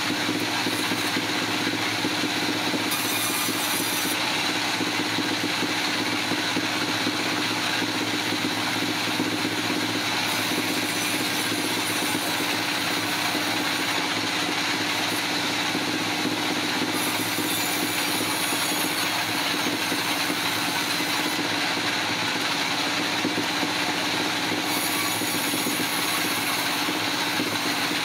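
Engine running steadily at a constant speed, with no rise or fall in load.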